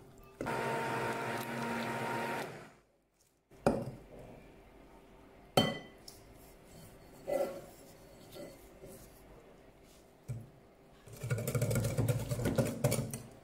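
Immersion blender running in a glass bowl, puréeing mandarin pieces with sugar and oil, for about two seconds before cutting off. A few light knocks follow, and near the end a wire whisk beats batter against the glass bowl.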